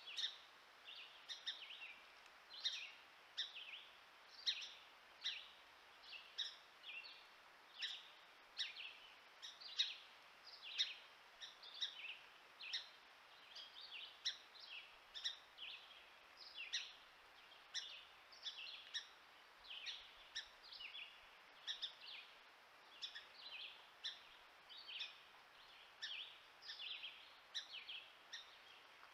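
A bird's short, high chirping calls, repeated steadily at about one to two a second.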